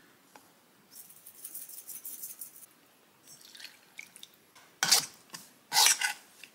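Kitchen sounds of mixing noodle dough: a soft pouring hiss for about two seconds, then a few faint handling sounds and two louder clatters near the end.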